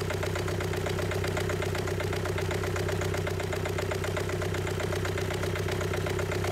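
Renault 1.5 dCi four-cylinder common-rail diesel engine idling steadily, with a fast, even diesel clatter.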